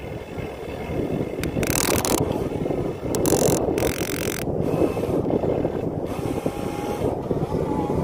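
Huina RC excavator working, digging into loose soil and lifting a bucketful over a dump truck: a steady mechanical clatter and scraping of dirt, with a few short hissing bursts in the first half and wind on the microphone.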